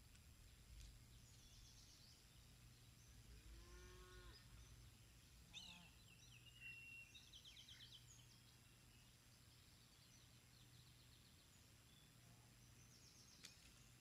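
A single faint, distant cow moo about four seconds in, one short call that rises and falls in pitch, with songbirds trilling high above a steady low hum.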